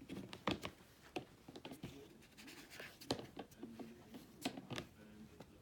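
Siamese kitten's claws and nose scratching, tapping and clicking at the lid of a plastic storage box in quick irregular bursts, with faint low growling in between as he works to prise it open.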